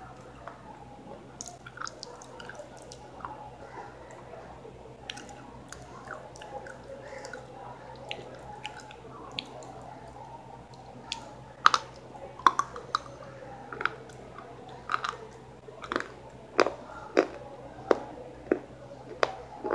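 A person chewing food close to the microphone, soft and crackly at first. About halfway through come sharp, loud mouth clicks, roughly one and a half a second.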